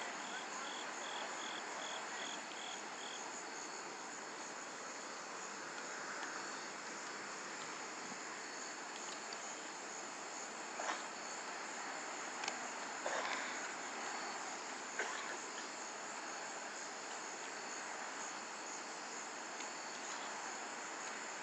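Night insect chorus, crickets trilling steadily over a constant background hiss. A short run of about eight quick chirps sounds in the first few seconds, and a few faint clicks come in the middle.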